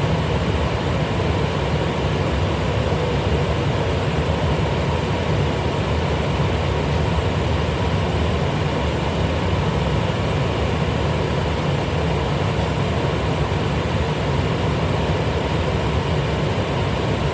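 Steady drone of jet engines and rushing air inside an airliner's cabin, heaviest in the low range and unchanging throughout.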